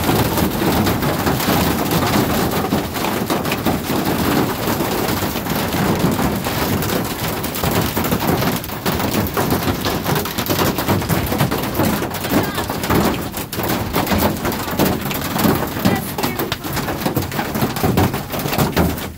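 Hail hitting a school bus's metal roof and windows, heard from inside the cabin: a loud, continuous clatter of countless hard impacts.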